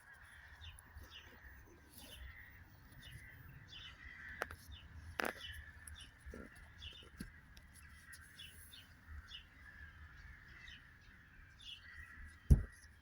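Birds calling over and over in the background, short repeated calls. A couple of sharp clicks come a few seconds in, and there is a single loud knock near the end.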